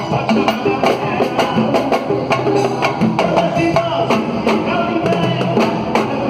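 Live samba music: a percussion group playing a quick, even rhythm of drum and hand-percussion strokes, with a melody over it.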